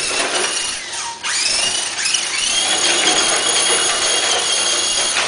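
Electric drive motor and gearbox of an Axial four-wheel-drive RC rock crawler whining as the truck drives. The pitch rises about a second in, then holds a steady high whine that cuts off suddenly near the end.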